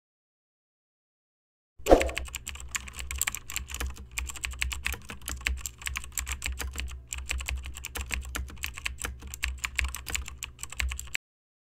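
Fast typing on a computer keyboard: a dense run of key clicks over a low hum. It starts about two seconds in and stops abruptly near the end.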